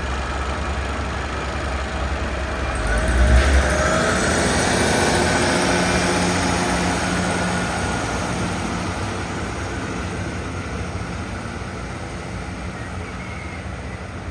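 Diesel locomotive of a passenger train pulling out of the station. A low engine rumble is followed, about three seconds in, by a loud surge with rising pitch as it powers up. It then runs steadily and slowly fades as the train moves away.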